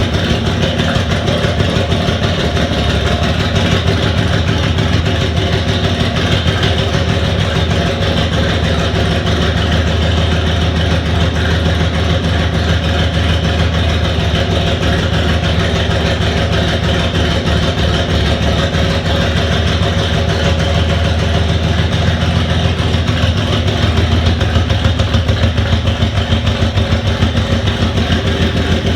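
Chevrolet 250 straight-six engine in a 1947 doodlebug skidder, running steadily at idle, its rapid exhaust pulses even throughout.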